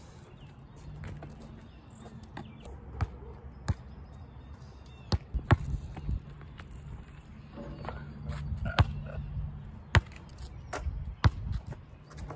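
Basketball bouncing on a hard asphalt court: a dozen or so sharp thuds at uneven intervals, some louder than others.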